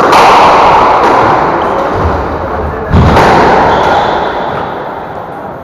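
Two loud hits of a squash ball, one at the start and one about three seconds later, racket striking the ball and the ball smacking off the court walls. Each hit rings on in the enclosed court's long echo, and the second has a deeper thud.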